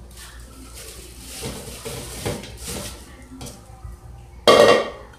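Irregular knocks and scrapes of a small container being handled on a stainless-steel sink counter, with one loud clatter about four and a half seconds in.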